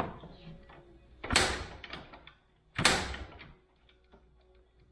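Two kick-start strokes on a cold ATV engine, about a second and a half apart, each a short loud burst that dies away without the engine catching. It is a cold start with the choke off.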